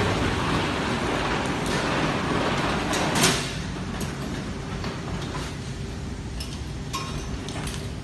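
Semi-automatic strapping machine running: a noisy mechanical whirr that ends in a sharp clack about three seconds in, then a quieter steady motor hum with a few light clicks.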